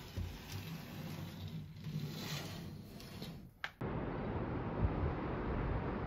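A fabric curtain rustling and sliding as it is pulled open, with a sharp click near the middle. About four seconds in, it cuts abruptly to a steady rushing noise.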